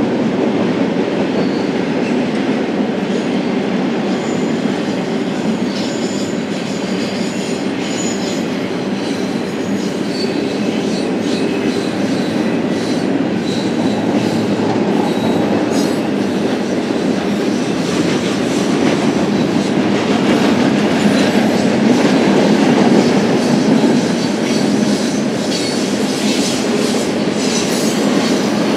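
Freight cars of a BNSF double-stack intermodal train rolling past: a steady, loud rumble of steel wheels on rail, with faint, brief high-pitched wheel squeals now and then.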